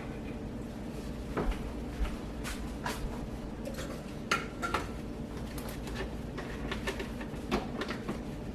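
Kitchenware clinking and knocking: a dozen or so short, sharp clinks and taps of dishes and utensils scattered through, over a steady low hum.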